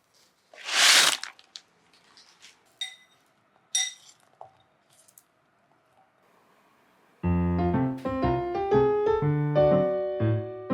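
A short burst of rustling noise, then two brief ringing clinks of kitchen utensils about three and four seconds in. Piano background music begins about seven seconds in.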